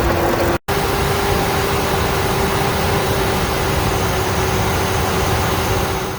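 Chevrolet Trailblazer / GMC Envoy 4.2-litre inline-six engine idling, with a steady whine over the running noise. The sound cuts out for a moment about half a second in, then carries on the same way.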